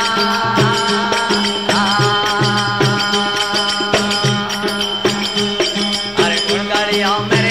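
Instrumental passage of Rajasthani folk bhajan music: a melody with slides and bent notes over a steady drone, carried by a repeating drum beat and sharp percussion strokes.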